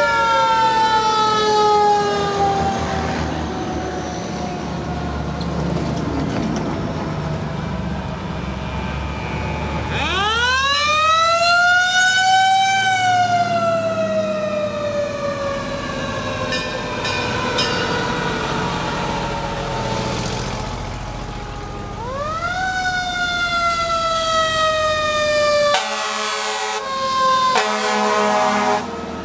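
Fire truck siren winding up quickly and then slowly winding down, three times over, with the trucks' engines rumbling underneath. Near the end a horn sounds in several short blasts.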